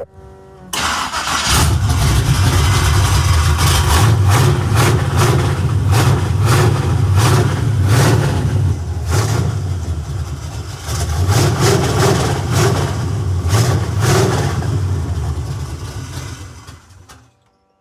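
Chevrolet Monte Carlo engine firing on a cold start. It catches about a second in and runs with a loud, deep rumble, its level swelling and easing, then cuts off suddenly near the end.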